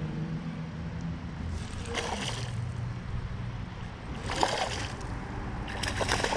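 Hooked smallmouth bass splashing and thrashing at the water's surface as it fights the line, in three splashy bursts, the middle one the sharpest.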